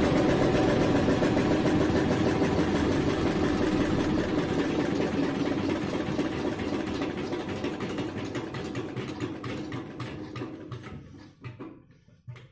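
Eicher single-cylinder diesel engine running with a fast, even chug, then slowing and fading over the last few seconds as it runs down to a stop.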